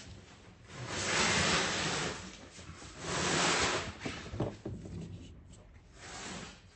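Handling noise: two swells of rustling or rubbing about a second each, a few small clicks, then a softer swell near the end.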